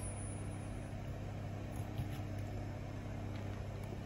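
Steady low hum of room tone, with a few faint soft clicks and chewing sounds as someone takes a forkful of food and eats.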